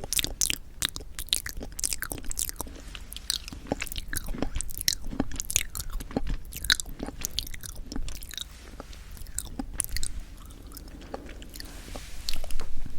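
Close-miked chewing of soft sweet red bean jelly (yanggaeng): a dense run of small wet, sticky mouth clicks that thins out in the second half. A brief louder burst of noise comes just before the end.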